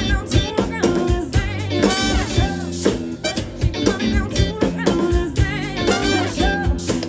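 Live funk band playing, with drum kit, bass line and singing.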